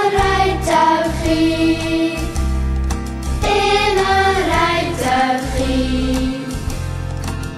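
Children's choir singing a song in long held notes over instrumental accompaniment with a steady bass line.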